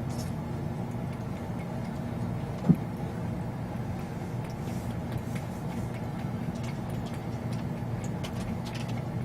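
Steady low hum, with one short thump almost three seconds in.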